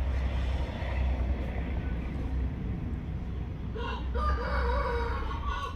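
A rooster crowing once, starting about four seconds in and lasting nearly two seconds.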